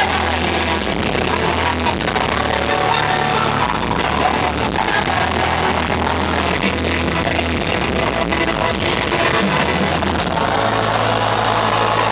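Live pop song from the arena sound system: a female lead vocal over the band, with heavy bass that swamps the crowd-shot recording. Near the end the bass settles on one held note.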